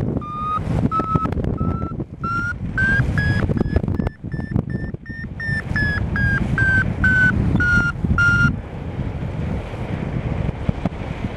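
Paragliding variometer sounding its climb tone: short beeps about two a second, rising in pitch, then easing down a little before stopping about three quarters of the way through. The glider is climbing in lift that strengthens and then weakens below the climb threshold. Steady wind rush runs underneath.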